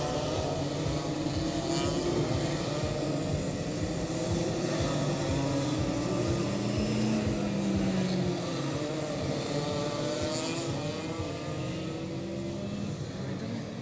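A pack of ROK Junior racing karts running their 125 cc two-stroke engines. Several engine notes rise and fall at once and overlap as the karts speed up and slow for the corners.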